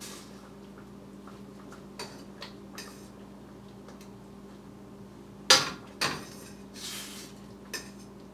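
A utensil clinking and knocking against a stainless-steel pan during plating: a few light clicks, then two sharper knocks about five and a half and six seconds in and a short scrape. A steady low hum runs underneath.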